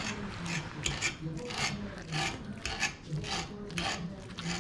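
A fork scraping and tearing through cooked beef tongue against a wooden cutting board, as the meat is shredded by hand: short rasping strokes, about two to three a second.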